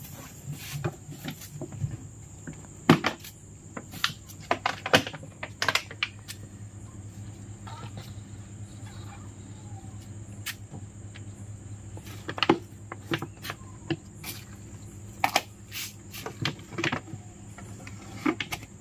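Scattered knocks and clicks of a clear plastic jar being handled, with its lid being fitted near the end. Under them runs a steady high cricket chirr and a low hum.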